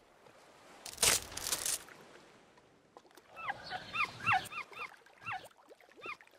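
A short noisy rush about a second in, then a run of quick high squeaks, each falling in pitch, two or three a second: a cartoon baby-turtle squeaking as it hatches from its egg.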